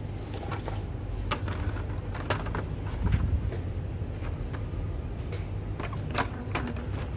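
Handling noise: scattered light clicks and rustles as carded toy packs on the rack and the phone are handled, over a steady low rumble.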